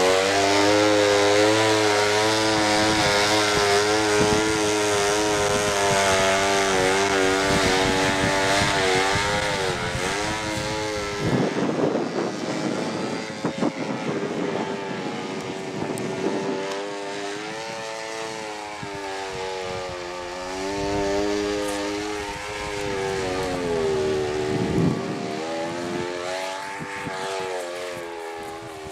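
KMD-2.5 model diesel engine on a free-flight model airplane running flat out with a steady note, then, about eleven seconds in once the plane is airborne, the note wavers up and down and grows fainter as it flies away.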